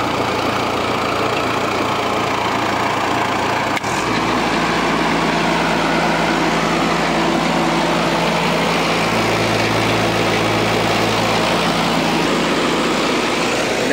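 Cable reel machine's engine running steadily; about four seconds in there is a click, and the engine's steady tone shifts to a slightly different note.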